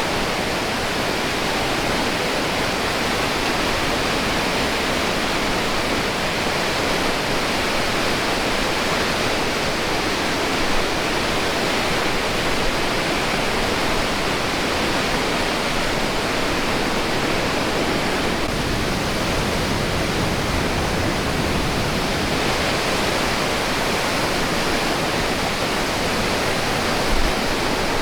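The Iguazu Falls, a very large waterfall, giving a steady, dense rush of falling water that masks all other sound.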